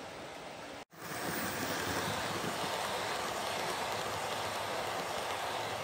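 OO gauge model train running along the track, a steady rolling rumble of wheels on rail. About a second in the sound cuts out abruptly, then returns louder as a rake of Pullman coaches runs close by.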